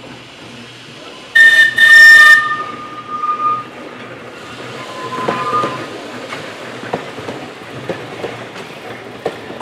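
Manx Electric Railway tramcar sounding two short, loud blasts on its warning horn about a second and a half in. As the tram and its wagon run past, the wheels rumble and click and knock over the rail joints.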